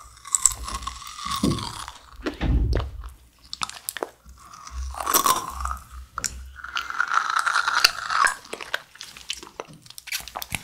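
Close-up wet mouth sounds of fruit jelly being sucked out of a squeezed soft plastic fruit-shaped cup and chewed, with irregular squelches and clicks.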